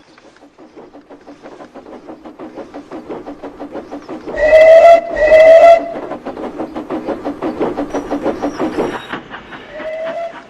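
Steam locomotive chuffing in a fast, even rhythm that grows louder, with two loud whistle blasts about four seconds in and a short, quieter toot near the end.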